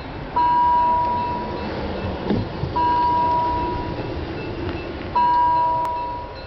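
Railway level-crossing warning bell ringing three times, one clear ding about every two and a half seconds, each ringing on and fading. It warns that a train is approaching the crossing.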